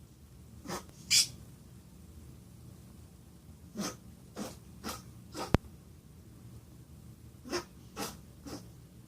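Pet rabbit sneezing repeatedly: about nine short, sharp sneezes in little clusters, the second one the loudest. A brief sharp click falls in the middle of the run.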